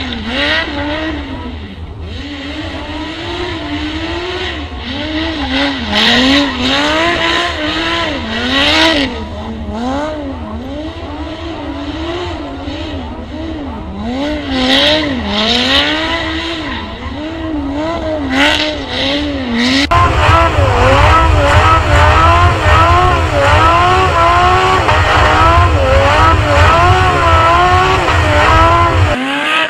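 Lamborghini Gallardo's V10 engine revving up and down over and over while the car drifts, with bursts of tyre squeal and sliding. About two-thirds of the way through it becomes louder with a much deeper rumble, picked up close to the engine.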